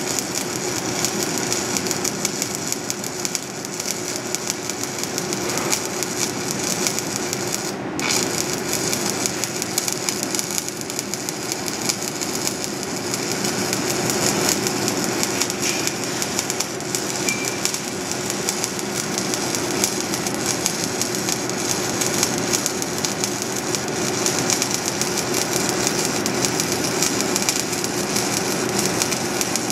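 Shielded metal arc (stick) welding arc from a 7018 electrode running a stringer bead on scrap steel: a steady, dense crackling hiss.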